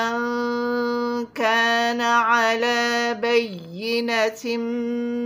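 A woman chanting Quranic recitation with tajweed. She draws out long held notes, breaks off briefly about a second in, sings a wavering phrase, then holds another long note near the end.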